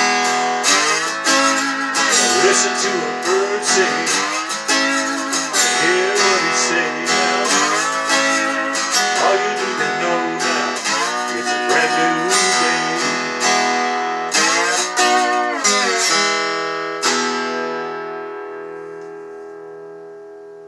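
Acoustic guitar strummed in a steady rhythm, ending about three-quarters of the way through on a final chord that rings out and slowly fades.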